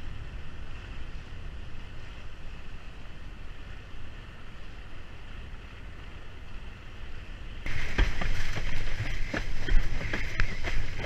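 Wind buffeting the microphone and water rushing past a windsurf board under sail, a steady low rumble with a hiss. About three-quarters of the way through it jumps louder, with rapid slaps and splashes of chop hitting the board.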